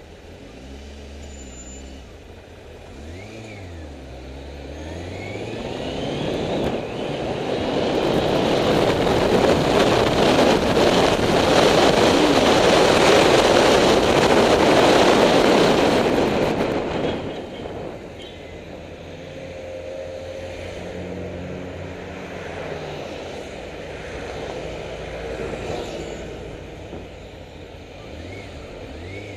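Honda CBF600's inline-four engine running under way, its pitch rising and falling with throttle and gear changes. In the middle a loud rush of wind over the microphone builds with speed and swamps the engine for about ten seconds, then drops away suddenly.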